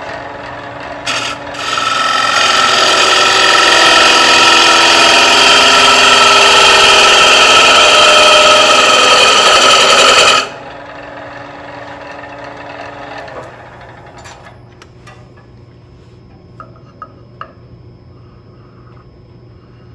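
A 3/8-inch bowl gouge cutting into the hollow of a spinning bowl blank on a wood lathe: a loud, steady cutting noise from about a second and a half in that stops abruptly around ten seconds. The lathe then runs on much more quietly for a few seconds, and a few light clicks come near the end as the wall thickness is checked with calipers.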